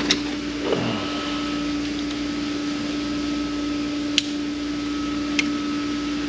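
Steady electric hum of a small motor running, with two light sharp clicks of tools on metal partway through.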